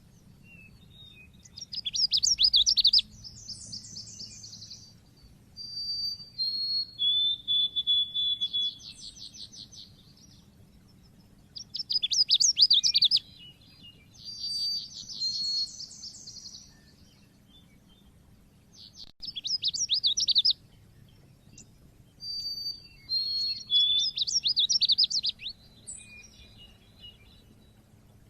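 White-eye (pleci) singing its 'cit keres' song in repeated bursts: rapid high-pitched chattering trills mixed with short whistled notes, each phrase lasting a second or a few seconds with pauses between.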